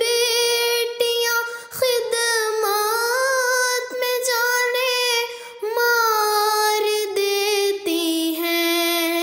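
A woman's voice singing an Urdu nazm, drawing the words out in long held notes with a slight waver and short breaks between them.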